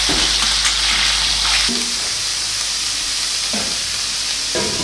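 Chicken pieces sizzling as they fry in oil in a stainless steel pot, a steady hiss that drops slightly in level about two seconds in, with a couple of soft knocks near the end.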